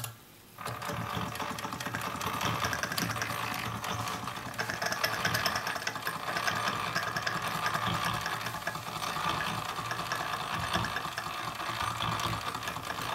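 Wilesco live-steam model tractor running, its stamped metal reduction gears keeping up a fast, steady clatter that drowns out the steam engine. The sound comes in after a brief dip right at the start.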